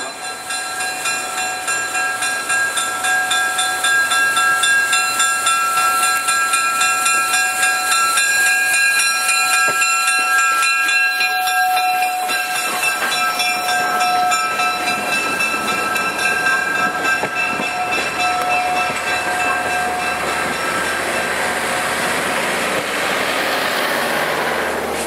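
A steam locomotive and its passenger cars passing at close range, with high, steady ringing tones held over the train noise for most of the time; the tones fade out about twenty seconds in while the cars roll on.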